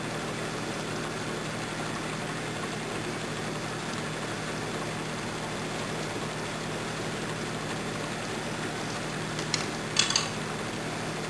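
Hydrogen (HHO) torch flame hissing steadily over a low hum. About nine and a half and ten seconds in come a few sharp crackles, the loudest sounds, as the heated wire gives way and a glowing piece drops onto the fire-brick base.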